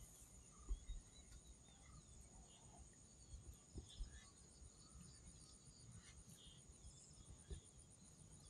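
Near silence with a faint, steady high-pitched insect chirring, a few faint bird chirps, and several soft low thumps.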